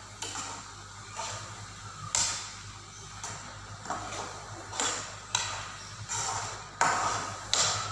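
A spatula scraping and stirring grated carrots in a frying pan in about eight short, uneven strokes, the carrots wet with dissolved sugar, over a steady low hum.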